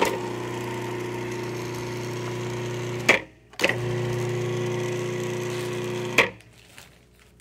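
Cuisinart food processor motor run empty on the pulse lever, twice: two steady hums of about three seconds each, each ending in a click as the lever is let go.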